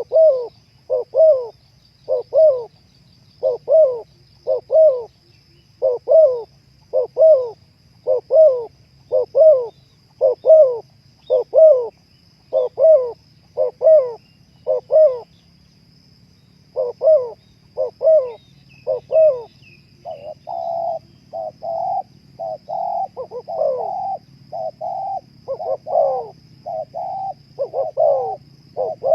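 Spotted dove (terkukur) cooing over and over in short, low, evenly spaced notes, with a brief pause midway. From about two-thirds of the way through, the coos come denser and run together.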